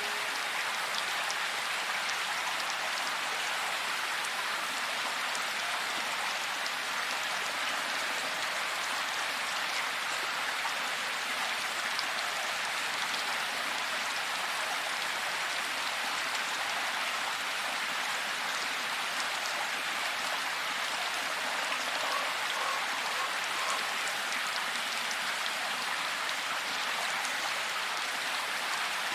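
Steady rain falling, an even hiss of drops pattering on surfaces with fine scattered drop ticks.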